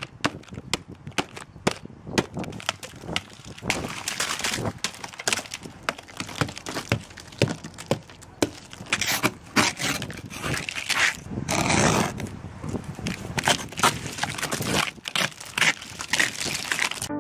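A snow brush and ice scraper clearing snow and frost off a car's roof and windows: repeated scraping and crunching strokes with many sharp knocks and clicks, and a longer, louder scrape about twelve seconds in.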